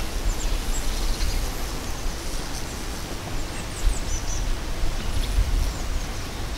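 Outdoor ambience: wind rumbling on the microphone, with faint, short, high bird chirps now and then.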